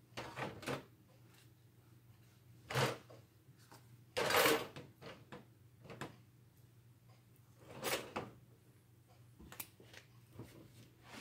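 A handful of short, separate rustling and knocking handling sounds from someone at work painting: brush and materials against canvas and palette. The loudest comes about four and a half seconds in.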